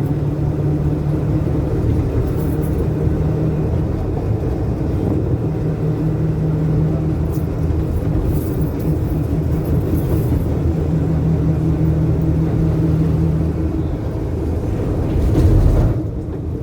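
Minibus heard from inside the cabin while driving: a steady engine drone with road rumble and body noise. The drone swells briefly near the end, then drops off suddenly.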